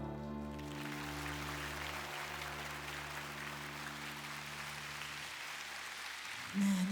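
Studio audience applauding over a low held chord, which fades out about five seconds in.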